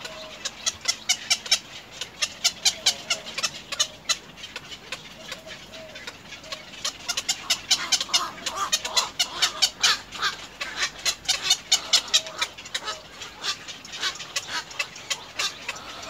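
Egrets at the nest calling in runs of short, sharp clicking notes, several a second, with a fainter, lower call now and then. There is a run at the start and a denser, busier run about halfway through, after a pause of a couple of seconds.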